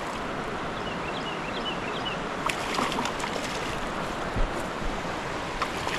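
Creek rapid rushing steadily while a hooked spotted bass splashes at the surface, with a few sharp clicks and a low thump.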